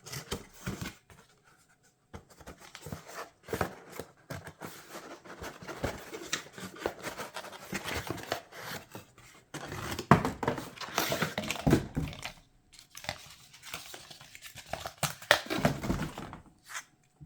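Packaging being torn open and crinkled by hand, in uneven bursts of rustling and tearing with short pauses.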